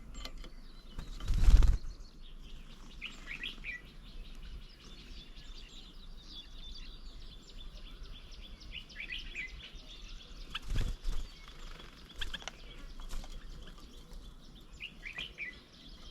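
Birds at a feeding table: a loud flutter of wings about a second and a half in and again about two-thirds of the way through, while a bird repeats a short burst of high chirps every few seconds.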